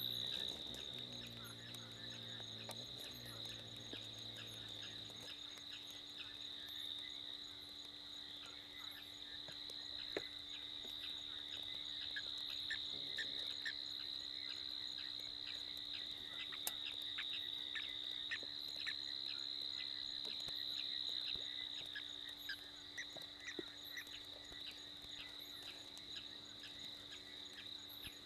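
Night insect chorus: crickets trilling steadily in one high band, with scattered faint ticks. A low drone underneath stops about five seconds in.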